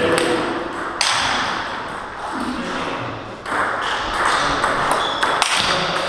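Celluloid-type table tennis ball clicking off bats and bouncing on the table, with a run of sharp ticks in the second half as a rally gets going.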